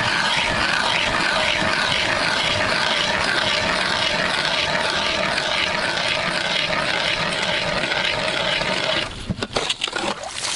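Loud, steady rustling from fur or clothing rubbing against a body-worn camera's microphone while walking over snow. Near the end the rustling stops and a few separate knocks follow.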